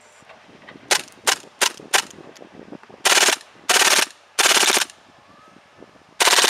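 Green-gas blowback airsoft H&K MP7 A1 firing: four single shots about a third of a second apart, then three short full-auto bursts, and a longer full-auto burst starting near the end.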